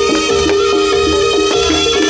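Jaranan gamelan music: a fast, repeating melodic line of short stepped notes over drum strokes.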